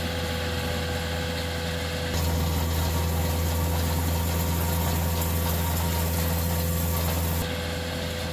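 CAT 259D3 compact track loader's diesel engine running steadily under load while it works a power rake through gravel. It gets louder about two seconds in and drops back down near the end.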